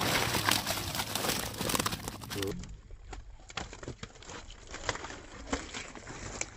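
A wet mesh keepnet full of live tilapia is hauled out of pond water: splashing and pouring water for about two and a half seconds, then a scatter of sharp slaps and rustles as the fish flap against the net.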